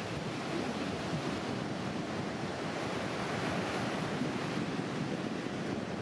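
Pacific Ocean surf breaking and washing in over a shallow beach: a steady rush of waves and foam with no pauses.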